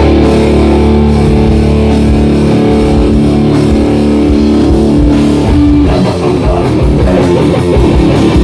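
Hardcore punk band playing live, loud and distorted: a guitar chord is held ringing for about five seconds, then the full band goes into a fast riff with drums.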